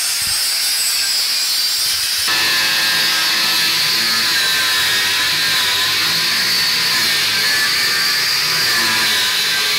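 Angle grinder cutting steel: a steady, loud high whine over a grinding hiss. The tone shifts slightly about two seconds in.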